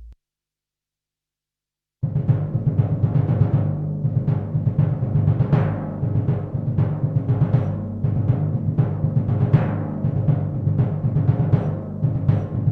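Sampled acoustic drum kit from the EZdrummer 3 Alt-Rock EZX. It starts after about two seconds of silence and plays a busy pattern dominated by rapid, ringing low tom hits, with sharper hits above them.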